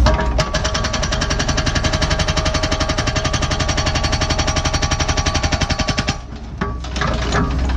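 NPK hydraulic hammer on a Cat 314E excavator pounding hard blue rock, a fast, even run of blows that stops about six seconds in. After it stops, the excavator's diesel engine keeps running with a few loose knocks.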